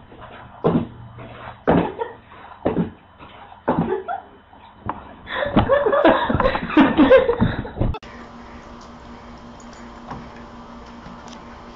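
A cat leaping and thumping against a wall, about one thump a second. About five seconds in, a person bursts into loud laughter for a few seconds. After that comes a quiet steady low hum.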